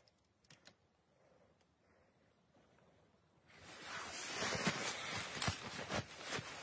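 Near silence with two faint ticks, then, from about three and a half seconds in, a close, dense rustling and crinkling full of small crackles, as of someone moving over the tent's groundsheet and handling things.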